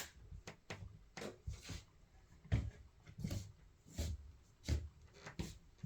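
Quartz movement of a radio-controlled atomic wall clock driving its hands forward fast on its own, giving a run of short clicks, two or three a second and slightly uneven: the clock resetting itself for the daylight saving time change.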